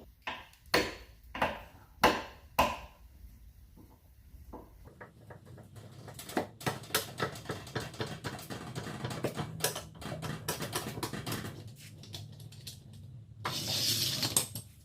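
Metal clanks from a scissor jack and its crank handle: a few separate knocks, then a long run of quick rattling clicks as the jack is cranked down to lower the car. A short rushing noise comes near the end.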